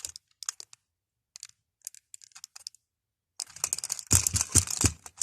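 Plastic clicks and rattling from handling a toy sonic screwdriver and pressing its button. The toy makes no electronic sound: it isn't working. Scattered clicks at first, then a dense run of clicks and knocks about three seconds in.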